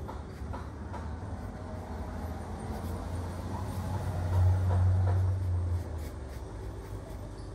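A low rumble that swells to a peak just past the middle and then dies back down, over faint scratching of a watercolour brush on textured paper.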